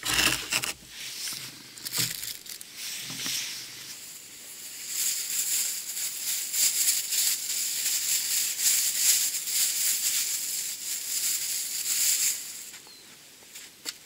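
Plastic bag crinkling and rustling as it is handled, from about five seconds in for some seven seconds, with a few short knocks in the first seconds.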